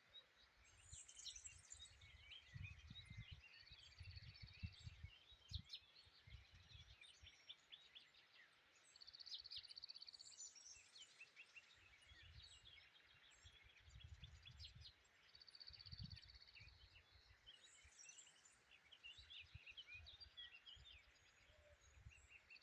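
A songbird, locally called tabarghla, singing in repeated phrases: a run of quick, high chirps and a short even trill, the trill coming back every five or six seconds. Low wind rumble underneath.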